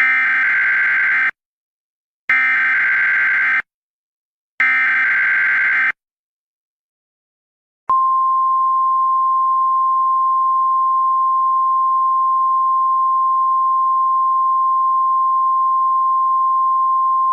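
Emergency Alert System test: three bursts of SAME header data tones, each just over a second long with about a second between them. About eight seconds in, a single steady attention tone begins and holds.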